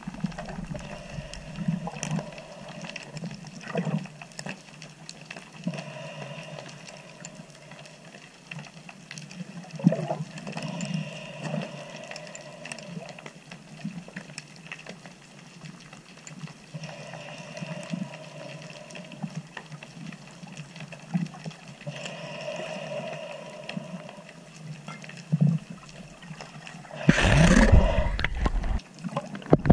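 Underwater ambience picked up by a camera submerged on a dive line: scattered clicks and crackles over a low rumble, with faint humming tones coming and going every few seconds. Near the end there is a loud burst of rumbling and bubbling as a freediver comes right up to the camera.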